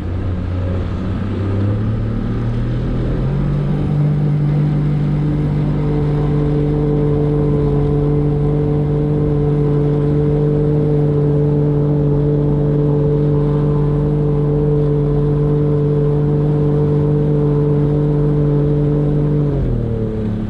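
Boat motor speeding up over the first few seconds, running steadily at higher revs, then throttling back near the end.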